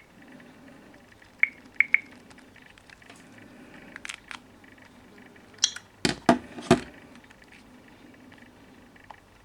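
Handling noise: a few sharp clicks in the first two seconds, then a cluster of four louder knocks about six seconds in, over a faint low hum. No ringtone or alarm tune is heard.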